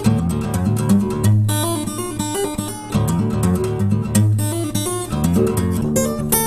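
Background music: strummed and plucked acoustic guitar playing a steady run of notes over a sustained low bass.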